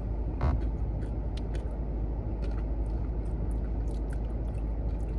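Steady low rumble of a car cabin, with a few faint clicks and mouth sounds of eating ice cream from a spoon.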